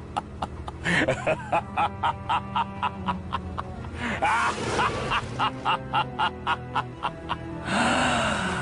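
Short music clip with a steady beat of about three strikes a second, held tones and sliding, wobbling notes over it, ending in a louder, noisier burst near the end before it cuts off.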